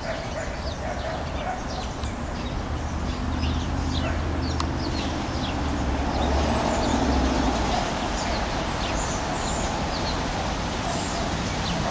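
Many short, high, falling bird chirps over a steady low traffic rumble, which swells for a couple of seconds in the middle.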